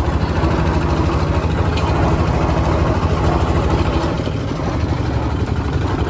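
Vehicle engine running with a steady low drone, heard from the open back of the vehicle.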